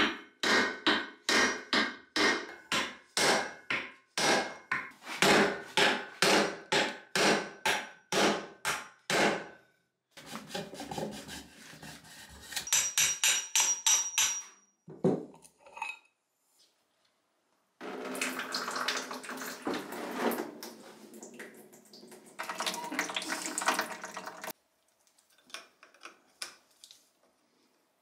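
A hammer striking a wooden block set on the finned cast-iron cylinder of a Pannonia motorcycle engine, a quick even run of sharp knocks, about three a second, for the first nine or ten seconds, driving the cylinder up off its studs. After that come scraping and rattling of metal parts and tools being handled.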